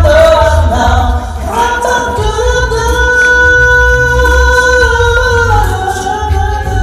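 Male a cappella group singing through microphones in close harmony, holding a long sustained chord through the middle, over a pulsing low bass line.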